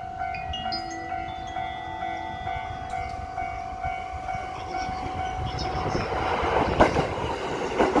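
Japanese level-crossing warning bells ringing steadily as a Saikyo Line electric commuter train approaches. The train's running rumble and wheel clatter grow louder over the last few seconds as it pulls in alongside.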